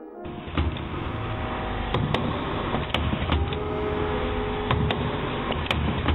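Industrial food forming machine running: a steady mechanical noise with irregular sharp clacks and knocks as the formers press prawn-and-vegetable mix into shaped portions.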